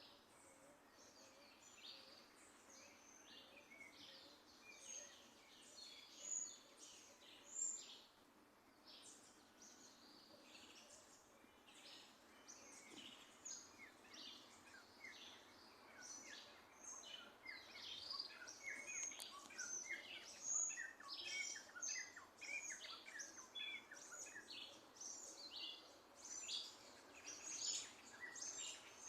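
Small birds chirping and singing, many short high notes overlapping from several birds, growing busier about halfway through.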